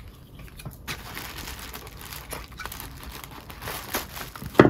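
Gift-wrapping paper and tissue paper rustling and crinkling as a wrapped package is handled and pulled open. There are scattered small rustles and one sharp click near the end.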